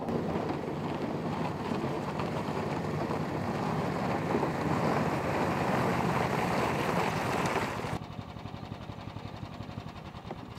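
Snowdog tracked power sled's small engine running as it hauls a cargo sled across lake ice, growing louder as it comes close. Just before eight seconds in the sound drops abruptly to a quieter, evenly pulsing engine note.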